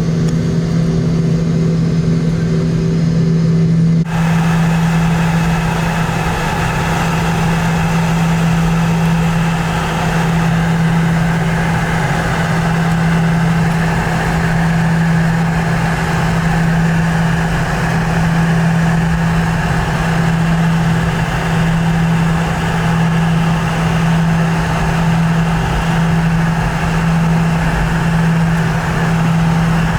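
Cabin noise aboard a Boeing 717 with its rear-mounted Rolls-Royce BR715 turbofans: a steady engine drone with a strong low hum. About four seconds in the sound changes suddenly and a steady hiss joins the drone.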